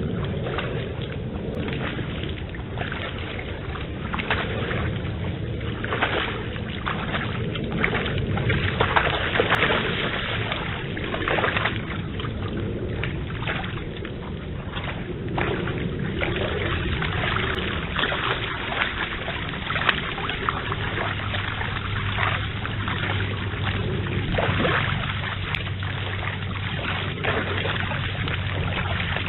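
Red deer hinds wading through a swollen stream, their legs splashing and sloshing in the water in frequent uneven splashes over the steady rush of the flowing stream, heard through a trail camera's microphone.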